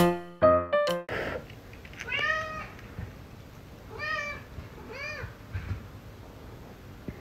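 A short piano phrase ends about a second in. Then a domestic cat meows three times, each meow rising and falling in pitch, with a fainter fourth call after the third.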